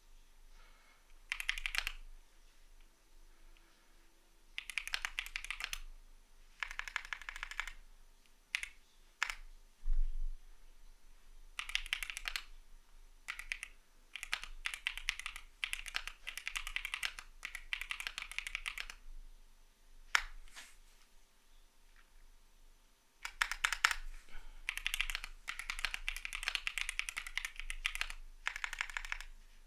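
Typing on a CIDOO V75 mechanical keyboard with Matte switches: bursts of rapid keystroke clicks separated by short pauses, with one heavier thud about ten seconds in.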